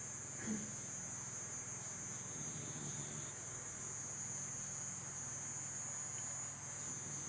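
Dog snoring, a low steady rasp, under a continuous high-pitched chirring of crickets.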